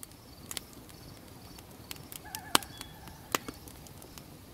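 Campfire crackling, with scattered sharp pops over a low steady rustle of burning wood; a short wavering whistle sounds about two seconds in.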